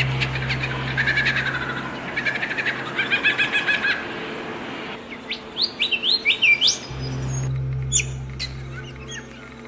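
Several birds chirping and singing: fast trilled chirps at first, then a quick run of rising whistled notes about halfway through. A low steady hum lies underneath at times.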